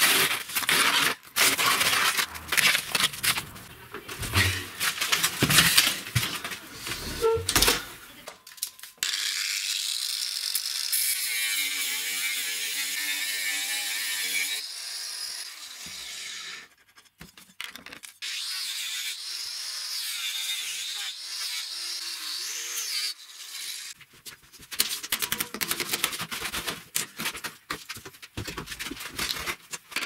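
Clatter, scraping and knocking as an old washing machine drum is handled and taken apart, with a run of rapid hard knocks near the end.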